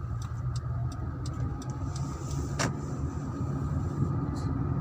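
Car engine and tyre noise heard from inside the moving car's cabin: a steady low rumble, with light ticks about three times a second over the first half.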